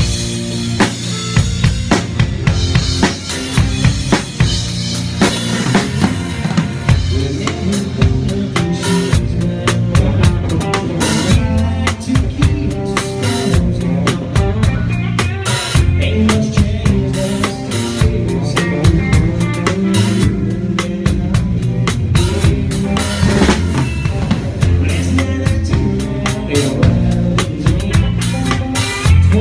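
Live band playing a song, with the drum kit up close and loudest: steady kick and snare hits over bass and other instruments.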